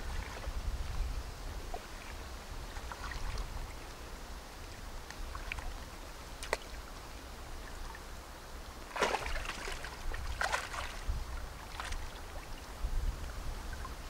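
Shallow lake water splashing and sloshing as a large mirror carp is handled in a wet nylon carp sling, with two louder splashes about nine and ten and a half seconds in.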